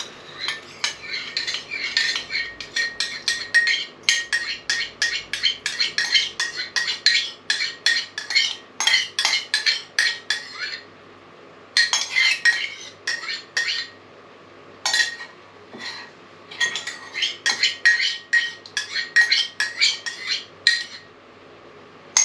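Metal spoon scraping the inside of a tin of coconut milk, scooping the last of it out into a pot, in fast runs of sharp strokes with two short pauses.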